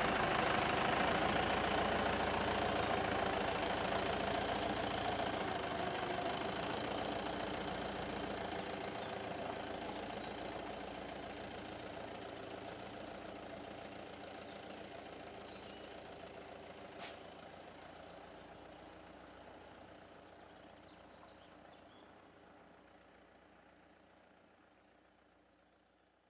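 Heavy log truck's diesel engine running, fading steadily into the distance as the truck drives away. A single sharp click about two-thirds of the way through.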